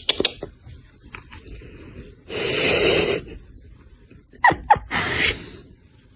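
An animal's vocal sounds: a loud noisy burst about two seconds in, then two short falling cries and another noisy burst near the end.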